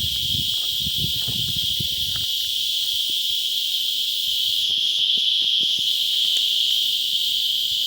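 Steady high-pitched drone of a chorus of insects, with some low rumbling in the first couple of seconds.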